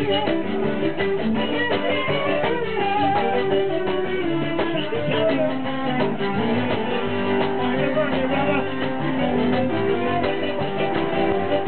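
Live zydeco band playing an instrumental passage: accordion over a steady drum beat.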